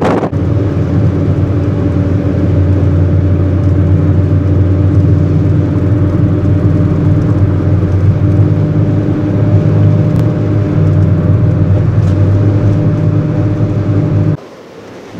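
Vehicle running at a steady speed, heard from inside the car: a loud, even engine and road hum that cuts off suddenly near the end.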